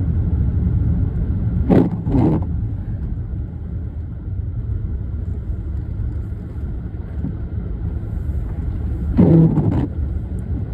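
Steady low rumble of a car driving on a snowy road, heard from inside the cabin, with the windshield wipers sweeping back and forth twice, about two seconds in and again near the end.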